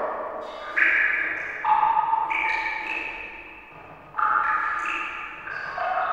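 Water drops plinking, about six separate drops, each a short pitched plink at a different pitch with a long echoing fade.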